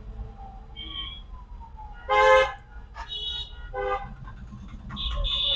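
Vehicle horns honking in several short blasts, the loudest about two seconds in, over a low background rumble.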